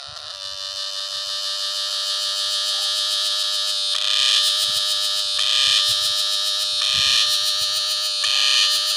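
Cicada singing: a loud, high-pitched buzz that swells over the first few seconds, then pulses in regular surges about every one and a half seconds.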